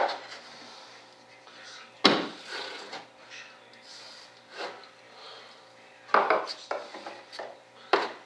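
Scattered knocks and scrapes of a hand and arm working inside a model jet's wooden fuselage, with soft rubbing in between: a sharp knock at the start, another about two seconds in, a cluster around six seconds and one more near the end.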